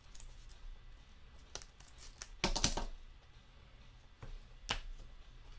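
Trading cards and a clear plastic card holder being handled: light clicks and scrapes, with a louder short clatter about two and a half seconds in and a sharp click near the end.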